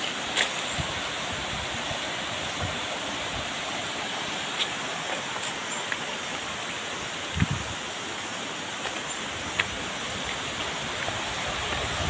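Steady rush of a rocky jungle stream and waterfall, with a few footsteps and sharp clicks on the dry, leafy path.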